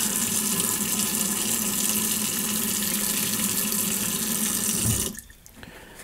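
Kitchen faucet running a steady stream of water into the sink, shut off about five seconds in.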